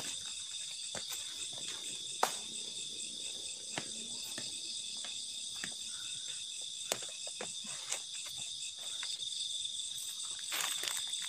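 Steady high-pitched chorus of night insects, with scattered sharp clicks and crackles on top, the loudest about two seconds in.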